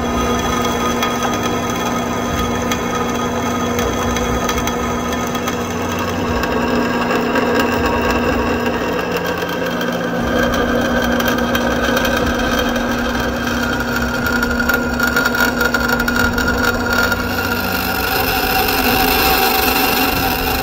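Drill press running with a steady motor hum as a twist drill bit bores holes through steel from a truck leaf spring.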